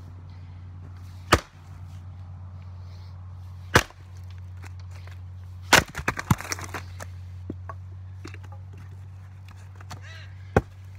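An axe chopping wood on a stump chopping block: single sharp strikes about a second and a half in, near four seconds and near six seconds, the last followed by a quick run of smaller cracks as the wood splits, and one more strike near the end. A steady low hum runs underneath.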